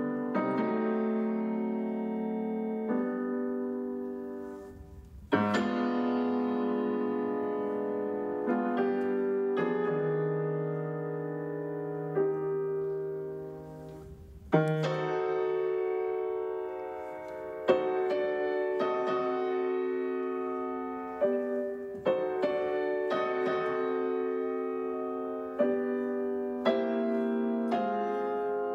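Solo piano played slowly and expressively: held chords ring and fade, with fresh, stronger chords struck about five and fourteen seconds in after the sound has nearly died away.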